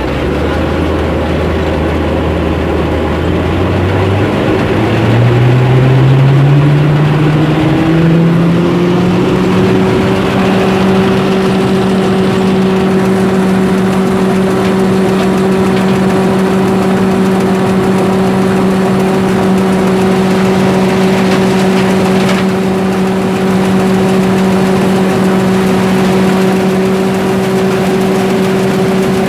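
A machine's motor winding up to speed, its hum rising in pitch in steps over about ten seconds, then running steadily at a constant pitch.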